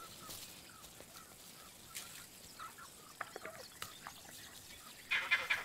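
Faint scattered clicks and rustles, then about five seconds in a sudden burst of rapid, high, chattering alarm calls from a vervet monkey, warning that a predator is approaching.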